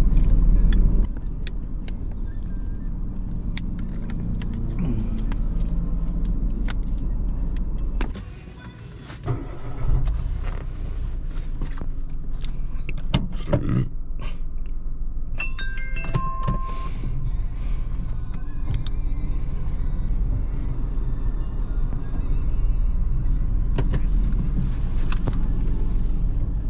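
Car engine running, heard from inside the cabin as a steady low rumble, with clicks and small handling knocks over it. The rumble drops away briefly about eight seconds in, and a short run of electronic beeps sounds about fifteen seconds in.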